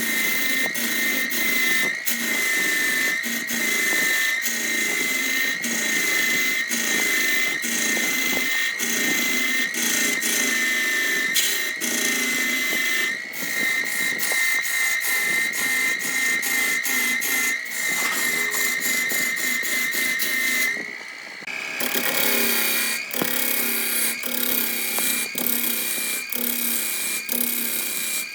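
A power tool running with a steady high-pitched whine and a fast, rough ticking. It dips briefly about three quarters of the way through, then carries on at a slightly higher pitch.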